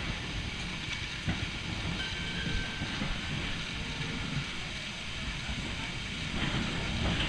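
1921 Peter Witt electric streetcar rolling slowly on its track: a low rumble of steel wheels on the rails with a few sharp clicks, growing a little louder near the end as the car comes closer.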